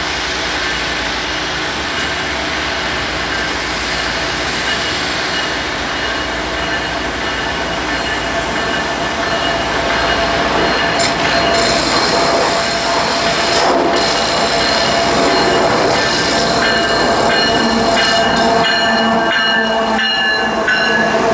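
Union Pacific freight train approaching: diesel locomotives running and steel wheels on rail, with some steady tones over the noise, growing louder from about halfway through as the locomotives near.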